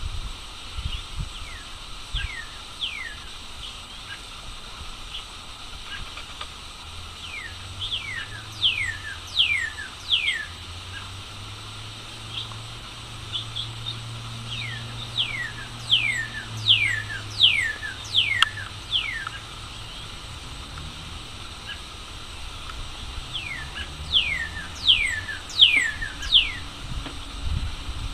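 Male northern cardinal singing: several phrases of clear, repeated down-slurred whistles, each phrase a run of quick falling notes, with pauses of a few seconds between them.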